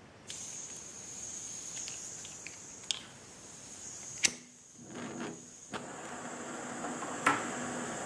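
A gas pencil torch hissing as gas flows from its nozzle, with sharp clicks of a disposable lighter being struck to light it, the loudest two about four and seven seconds in. The hiss breaks off for about a second and a half midway, then comes back steady as the torch burns with a small blue flame.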